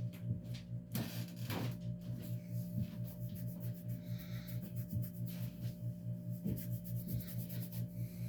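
Minka Aire Spacesaver ceiling fan motor running on a variable speed control, giving a loud buzzing hum that pulses about four times a second.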